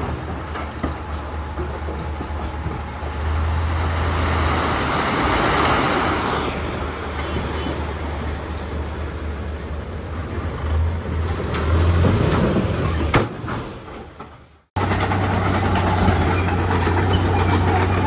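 Diesel engines of heavy earthmoving machinery running steadily under load, with a rushing noise that swells and fades about four to six seconds in. The sound fades out about three quarters of the way through and comes back abruptly a moment later.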